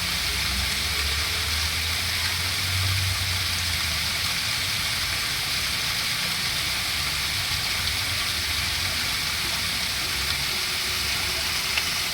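Steady rush of flowing water, an even hiss with no breaks, over a low rumble that is strongest in the first few seconds.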